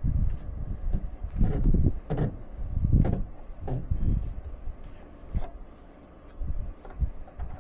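Irregular knocks, clunks and scraping from hand work on an air handler's drain fitting, as a pipe fitting is handled and worked into place.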